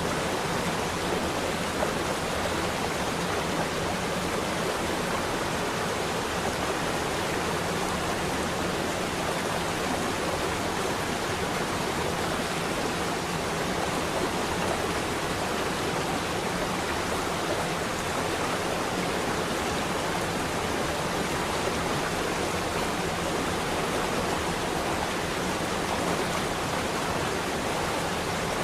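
Waterfall: water falling and rushing at a steady level, unbroken throughout.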